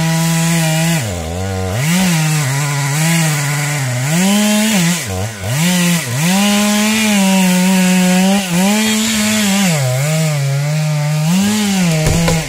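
Two-stroke chainsaw cutting into a large beech trunk at high revs, its pitch dipping and recovering again and again as the chain loads in the cut and the throttle is eased. Near the end the engine drops off.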